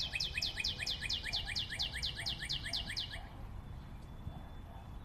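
A rapid, even trill of bird-like chirps, about eight a second, each a quick downward sweep; it stops abruptly about three seconds in.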